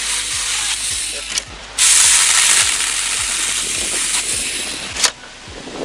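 Saker 4-inch mini cordless electric chainsaw running and cutting through a dry branch, its chain rasping through the wood. The cut breaks off briefly about a second and a half in, then runs again until a sharp click about five seconds in, after which it is quieter.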